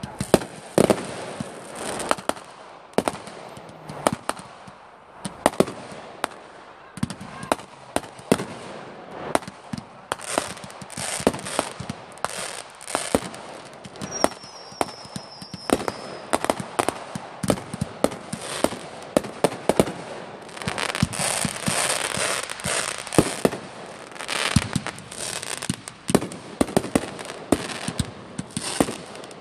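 Fireworks going off in a rapid, irregular string of sharp bangs and pops, several a second, as multi-shot firework cakes fire fans of stars, with fizzing crackle between shots. A faint thin high whistle comes in about halfway.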